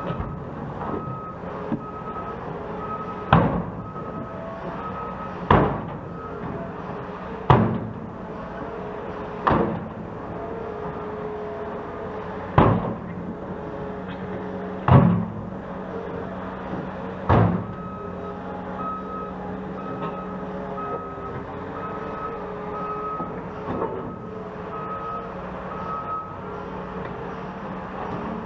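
Heavy construction machinery running, with seven loud bangs about two seconds apart in the first two-thirds. A backup alarm beeps at the start and again later.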